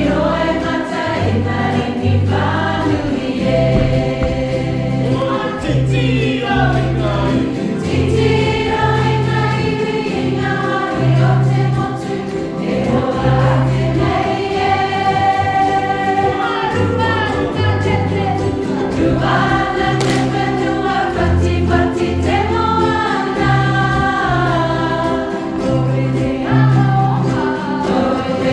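Music with a group of voices singing together over a pulsing bass line.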